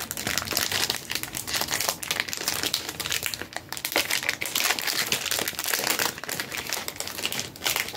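Clear plastic wrapping around a bundle of booster packs crinkling and crackling continuously as it is handled and opened, with many quick crackles throughout.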